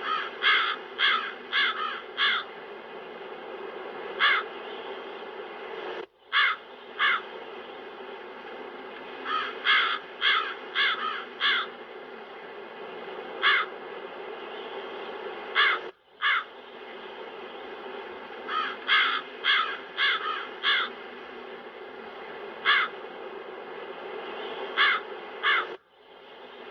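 Crows cawing, mostly in runs of three to five calls with single caws between, over a steady bed of wind noise. The sound cuts out for an instant about every ten seconds, like a loop restarting.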